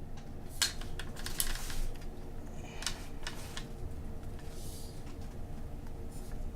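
A few scattered light clicks and taps from keys or a trackpad being pressed, over a faint steady hum.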